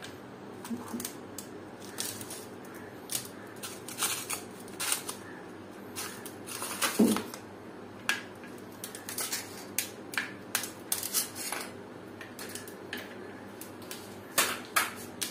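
Ice cubes being cracked out of a plastic ice tray and dropped into a clay pot of tamarind water: a scattered string of sharp clicks and knocks, with one louder knock about seven seconds in, over a faint steady hum.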